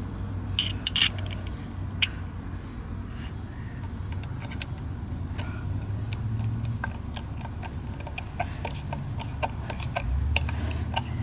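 Hand screwdriver turning the top vent/level screw plug back into a boat sterndrive's lower unit after it has been filled with gear oil: a string of small metallic clicks and ticks. A low steady hum runs underneath, and a deeper rumble joins about ten seconds in.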